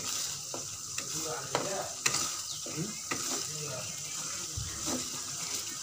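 Chili sambal paste sizzling as it fries in oil in an aluminium wok, while a metal spoon stirs it, scraping and knocking against the pan about every half second.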